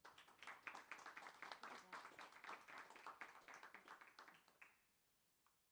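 Small audience applauding with dense hand claps that thin out and die away near the end.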